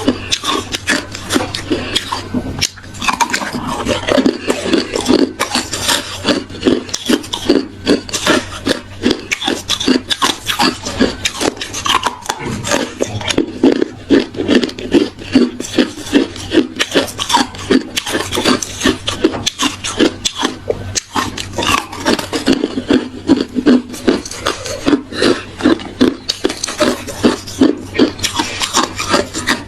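Hard reshaped ice being chewed close to the microphone: rapid, continuous crunching and crackling, several bites a second.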